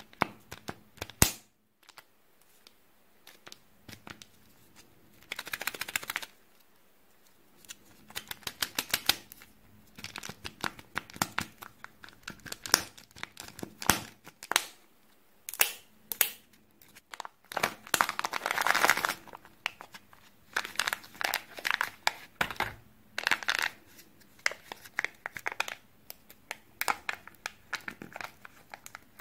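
Fingers handling a Kinder Joy plastic egg: sharp clicks and taps on the hard plastic shell, rapid runs of ticking, and several bursts of crinkling. Near the end the egg's sealed lid is peeled back with a tearing sound.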